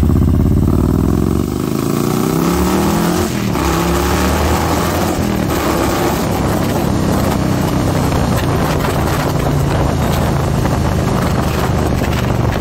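Harley-Davidson Milwaukee-Eight 114 V-twin with an S&S 475 cam, running a freshly flashed cam tune, accelerating with its pitch rising for about three seconds. After a gear change it climbs again, then settles into a steady cruise under heavy wind noise on the microphone.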